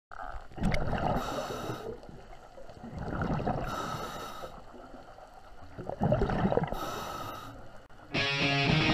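Scuba diver breathing through a regulator underwater: three breaths, each a hiss followed by a burble of exhaled bubbles. Near the end, rock music with electric guitar cuts in.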